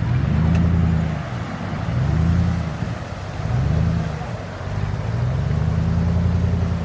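Off-road 4x4's engine revving in four rising and falling surges, the last one longest, as the vehicle works through a muddy river crossing.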